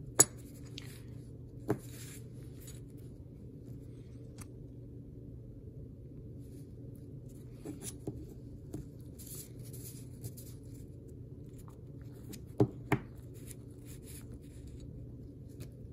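Gloved hands handling silver bullion coins: soft glove rustling and scattered light clicks as the coins touch, the loudest pair about 13 seconds in, over a steady low hum.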